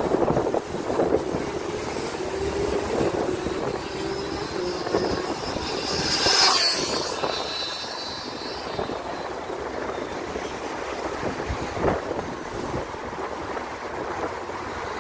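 Electric Kyosho Inferno NEO 3.0 VE RC buggy, running a Surpass Hobby 4076 2000kv brushless motor on 6S, making a flat-out speed pass. Its high motor whine builds and, about six and a half seconds in, drops sharply in pitch as the car shoots past.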